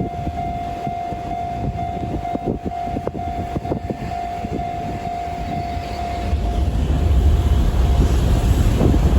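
Level crossing alarm sounding a steady electronic tone while a freight train passes, with wheels clicking and knocking over the rails. The train's rumble swells louder after about six seconds and the alarm tone fades under it.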